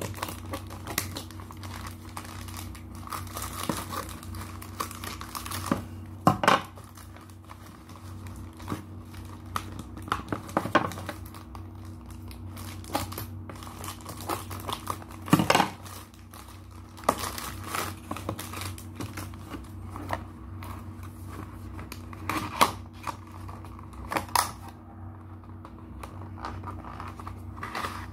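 Black plastic courier mailer bag crinkling and rustling as it is handled, cut open with scissors and torn apart, in irregular crackles with a few sharper snaps, over a steady low hum.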